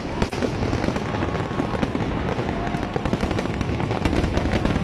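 Aerial fireworks going off in a continuous barrage: many rapid pops and crackles over a steady low rumble.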